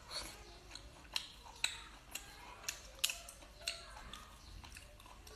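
Wet mouth smacks of a person chewing lobster meat, a sharp smack about every half second.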